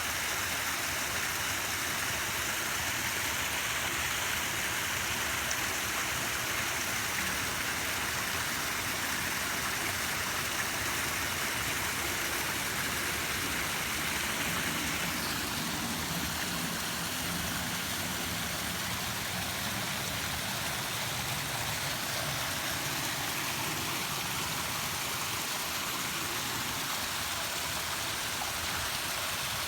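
Waterfall: water falling in a steady, continuous rush, its tone shifting slightly about halfway through.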